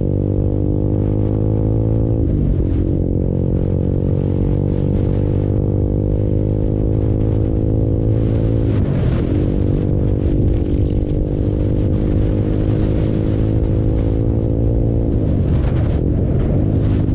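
Honda CBR150R's single-cylinder engine pulling through the gears under acceleration: its pitch climbs slowly in each gear, broken by gear changes about two seconds, nine seconds and fifteen seconds in.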